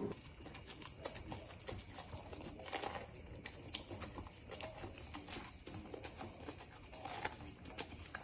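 Golden retriever puppy biting and chewing on corn on the cob held out by hand: faint, irregular crunching and clicking of teeth on the kernels.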